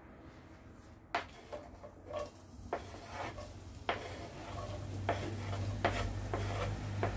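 Wooden spoon knocking and scraping on a cutting board as chopped onions are pushed off into a pot, a series of sharp taps and knocks. A low steady hum comes in about halfway.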